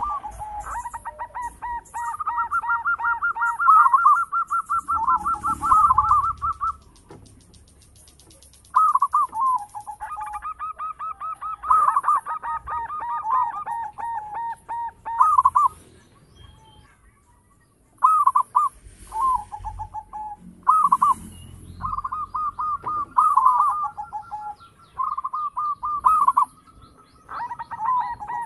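Zebra dove (perkutut) singing its cooing song: long runs of quick, short coos stepping between a few pitches, in phrases of several seconds that break off twice for a second or two.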